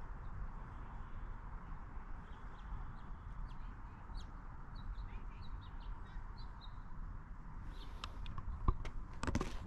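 Small birds chirping in short, scattered high notes over a steady low outdoor background, with a few sharp knocks near the end.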